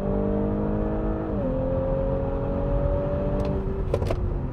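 The turbocharged 3.0-litre V6 of a 2018 Audi S5 Sportback at full throttle, heard from inside the cabin, its note climbing steadily. It drops once with an upshift of the eight-speed automatic about one and a half seconds in, then climbs again before fading near the end, where a few clicks are heard.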